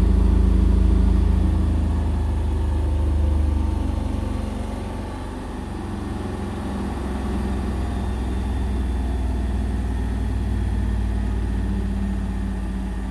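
Indesit BWE101683 washing machine drum spinning at high speed in its final spin, a steady low drone strong enough to make the floor vibrate. The load is slightly unbalanced and heavily sudsed. The drone eases a little about four seconds in and then runs on steadily.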